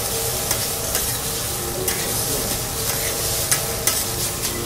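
Fried rice with egg and beef pieces sizzling on a teppanyaki steel griddle as two metal spatulas chop, toss and scrape it. Steel strikes steel in irregular sharp clicks, about one or two a second.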